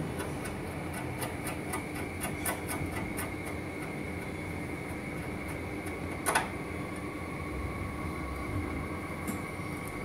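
Hand screwdriver turning a screw to fasten a sheet-metal bracket onto a machine's steel housing, with a run of light clicks for the first few seconds and one sharper metallic click about six seconds in. A steady mechanical hum underlies it.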